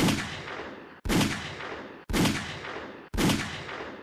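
Four 9mm pistol shots from a Sig Sauer P938 firing Lehigh Defense Maximum Expansion 105-grain solid-copper hollowpoints into ballistic gelatin. The first shot comes right at the start and the other three follow about a second apart. Each shot rings away and is cut short by the next.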